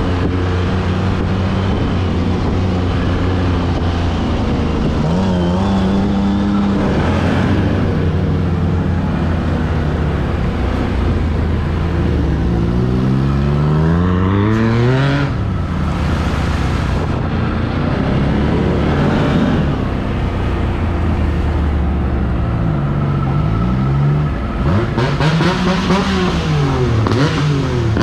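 Can-Am Renegade 1000 ATV's V-twin engine running under way. Its pitch climbs and falls with the throttle, in a run of quick rev rises and drops in the second half.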